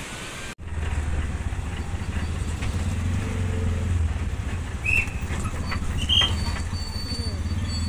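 A vehicle's engine running, heard from inside the moving vehicle: a steady low drone with road noise. Two short high beeps sound about five and six seconds in. A brief moment of surf and wind comes before it in the opening half second.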